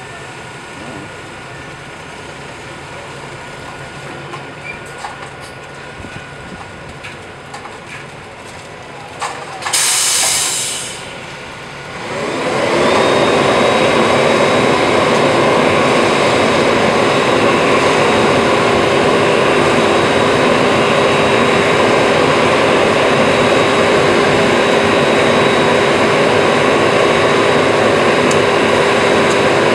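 Concrete mixer truck: a short, loud hiss of air about ten seconds in, then the diesel engine revs up and holds steady at high speed to turn the drum for discharging concrete down the chute.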